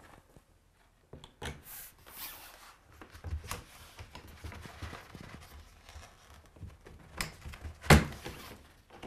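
Thin printed vinyl backdrop rustling and crinkling as it is handled against the wall on its curtain rod, with scattered clicks and knocks; the loudest is a sharp knock about eight seconds in.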